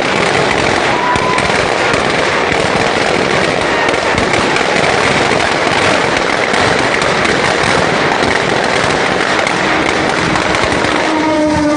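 Firecrackers crackling densely and continuously, with a steady horn-like tone joining near the end.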